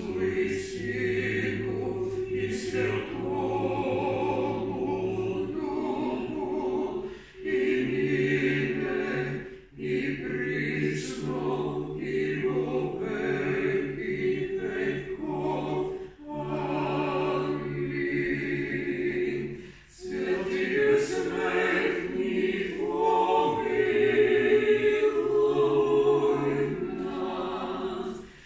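Small mixed-voice a cappella ensemble singing in harmony, with held chords in phrases of several seconds separated by brief pauses.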